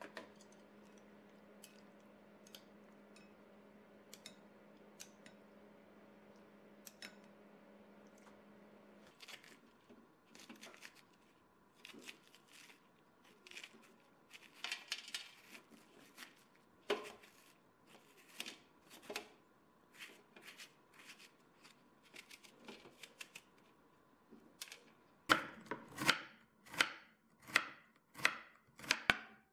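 A steady low hum with faint ticks, ending suddenly about nine seconds in. Then irregular scraping and snapping as the pith and seeds are pulled out of a split bitter melon by hand. Near the end, a kitchen knife slices the bitter melon on a bamboo cutting board in evenly spaced cuts, a little under two a second; these are the loudest sounds.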